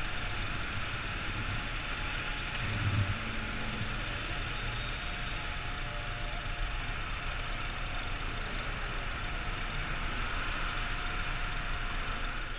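Steady street-traffic noise from vehicles idling in a queue, a low engine rumble under a constant hiss, swelling briefly about three seconds in.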